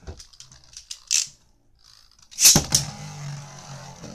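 Two Beyblade Burst spinning tops whirring in a plastic stadium and clashing with sharp clicks: one hit about a second in, then two louder ones in quick succession about two and a half seconds in.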